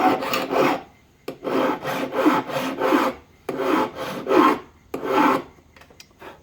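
Round file rasping across the steel blade edge of a Pilot cut broadhead in three quick runs of strokes with short pauses between them, working the inside of the blade's curve to raise a burr on the back edge.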